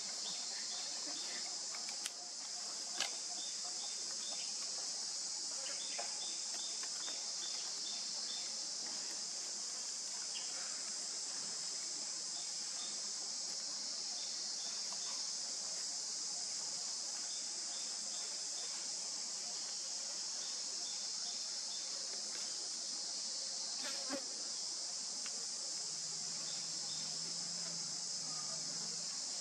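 Steady, high-pitched drone of an insect chorus, unchanging throughout, with short runs of faint chirps beneath it and a couple of sharp clicks a few seconds in.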